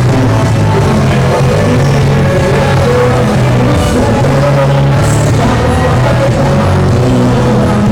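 Loud rock-style music with a drum beat and a steady bass line.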